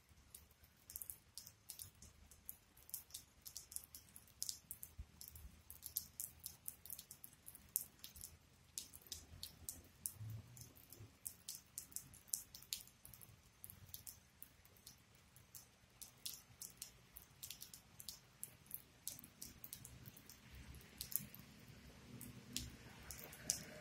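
Water drops ticking irregularly on a hard surface close by, several faint sharp clicks a second, as from dripping or light rain.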